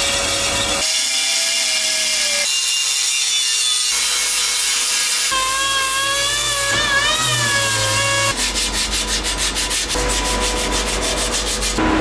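A metal-turning lathe spins an aluminium alloy wheel while a cutting tool trims the excess weld off its rim, giving a steady machine whine over a scraping cutting noise. Then a handheld orbital sander runs against the repaired rim. The sound changes abruptly several times, as between short clips.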